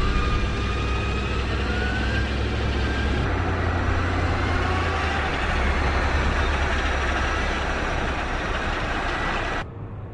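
Zero electric motorcycle riding along a street, its motor giving rising whines over a steady mix of road and wind noise. The sound changes abruptly about three seconds in and drops away sharply just before the end.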